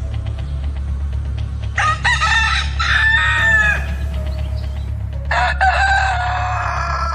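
A rooster crowing twice, each crow about two seconds long, over a steady low background drone.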